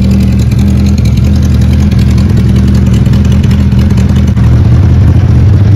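Suzuki Hayabusa's inline-four engine running steadily, exhausting through a Yoshimura silencer held by hand on the exhaust outlet. It grows slightly louder and deeper about four seconds in.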